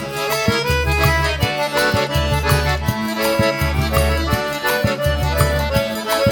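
Instrumental forró pé de serra: accordion playing the melody over a steady low drum beat.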